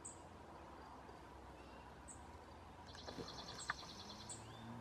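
Faint field ambience with small birds: a few short high chirps, and a rapid even trill about three seconds in that lasts just over a second. A couple of soft clicks come near the trill, and a low steady hum comes in near the end.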